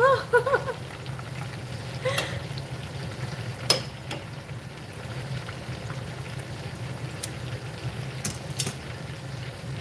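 Chicken thighs deep-frying in a stainless steel pot of hot oil, a steady sizzle, with a few sharp clicks of metal tongs against the pot, one about a third of the way in and three more near the end.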